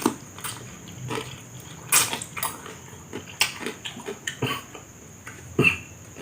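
Close-up eating sounds of fried instant noodles mixed with coffee milk and jelly drink: irregular wet smacks, slurps and clicks, the loudest about two seconds in and near the end.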